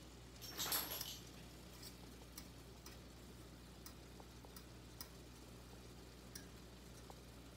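Metal fork stirring ground beef in a copper-coloured frying pan: a short scrape against the pan about half a second in, then scattered light clicks of the fork on the pan.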